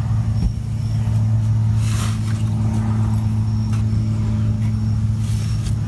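A steady low hum, holding one pitch with a fainter overtone at twice that pitch.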